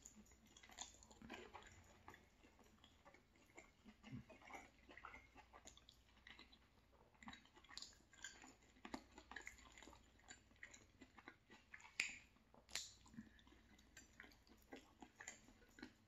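Faint close-up chewing of a mouthful of sausage rigatoni: soft, wet mouth sounds and small irregular clicks, with two sharper clicks about three-quarters of the way through.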